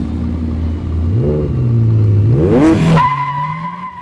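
Car engine revving twice, each rev rising in pitch, then a steady high tyre squeal starting about three seconds in.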